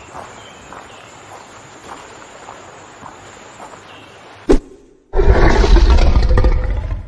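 Outro sound effect: a faint steady hiss with soft ticks, then a sharp hit about four and a half seconds in and, after a short gap, a loud roar lasting about two seconds as the logo appears, fading out near the end.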